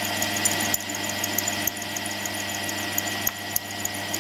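Drilling machine running steadily, a constant hum with a thin high whine over it, its drill just broken through into a cross hole in a cast iron valve chest.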